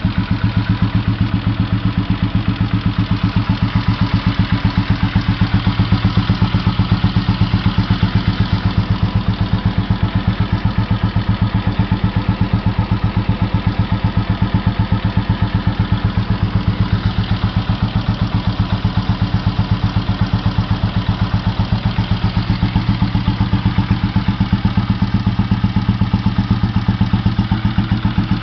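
Royal Enfield Electra 5S single-cylinder cast-iron engine idling steadily with an even, rapid exhaust thump. It is fitted with a vintage Mikuni K17 carburettor and an Indore exhaust muffler.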